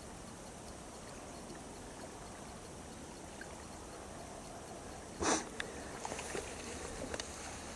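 Faint steady outdoor hiss, then about five seconds in a sudden loud rustle followed by a run of dry crackles as tall dry reeds are brushed and pushed through.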